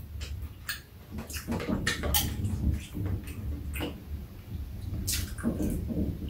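Mealtime eating sounds: chopsticks clicking against bowls and people chewing and slurping food, in short scattered clicks and mouth noises.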